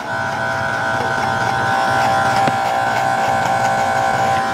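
Corded Scarlett SC-167 electric hair clipper buzzing steadily as it trims beard stubble under the chin and along the neck.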